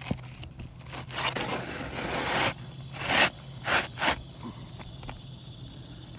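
Gritty scraping and rustling on an asphalt shingle roof: a long scrape about a second in, then three short scrapes, over a steady low hum.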